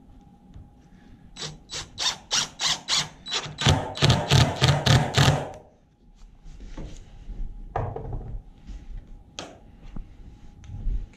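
One-handed ratcheting bar clamp being tightened on the glued boards: about twenty quick clicks of the trigger, some five a second, growing heavier near the end. Then a few quieter scattered knocks and clicks of handling.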